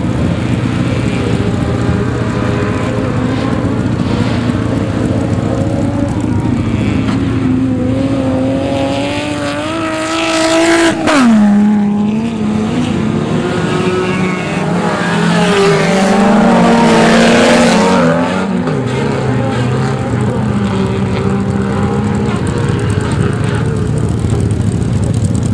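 Autocross race cars running flat out on a dirt track, several engines revving together. One car passes close about eleven seconds in, its engine note climbing and then dropping steeply as it goes by. Another loud pass follows around eighteen seconds in.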